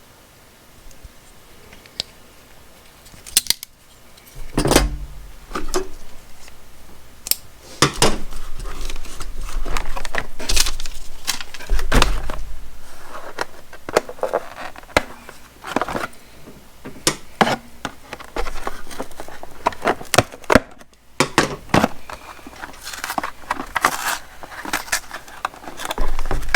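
Metal hand tools being handled and worked: a run of irregular sharp clicks, knocks and scraping, starting a few seconds in after a quiet stretch.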